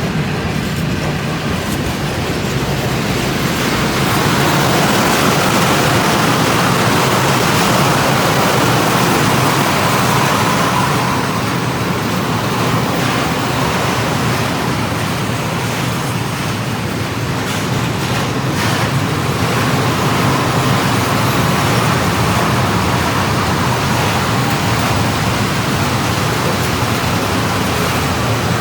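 Train rolling past on the line, a steady loud rumble and rush of wheels on rails, with a few faint clicks a little past the middle.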